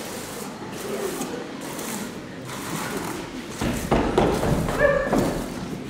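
Besom brooms sweeping across a stage floor in repeated scratchy brushing strokes, growing louder and heavier a little past halfway through.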